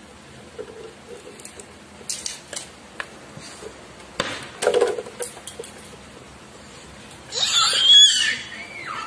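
Cardboard being handled and shifted, with scattered rustles and taps and a denser scrape about four seconds in. A little past seven seconds in, a toddler gives a loud, high-pitched squeal that bends in pitch and lasts over a second.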